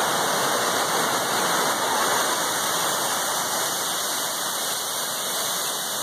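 El Limón waterfall's water rushing steadily down the rock face, an even hiss that doesn't change.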